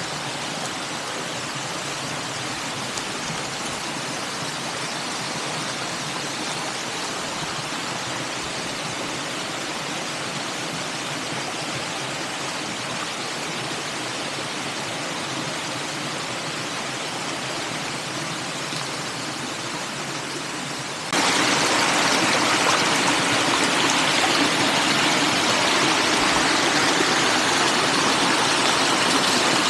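Steady rushing of a flowing stream. About two-thirds of the way through it becomes suddenly louder and stays that way.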